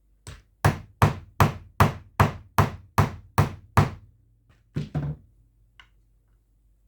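Hammer striking the large end of a snap-fastener setting tool, setting a gripper stud onto its prongs through fabric. After a light tap come about nine sharp blows at a steady pace of roughly two and a half a second, then two more quick blows after a short pause.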